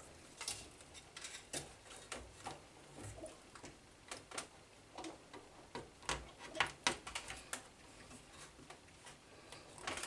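Irregular clicks and light knocks of power-supply cable connectors being handled and pushed into sockets on a computer motherboard inside an open metal case.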